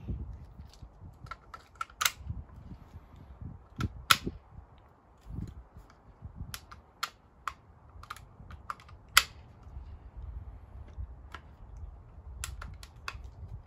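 Irregular sharp metallic clicks and snaps of a rifle's action being worked, the bolt pulled back and a lock being engaged, the loudest snap about nine seconds in.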